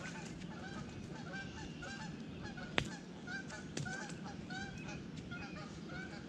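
Geese honking over and over, several calls overlapping, with a sharp click a little under three seconds in and a fainter one about a second later.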